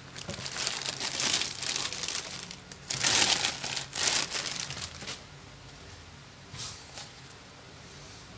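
Clear plastic bag crinkling and rustling as it is pulled off a cordless orbital sander. It is loudest about three to four seconds in and dies down after about five seconds, with only a couple of faint rustles after that.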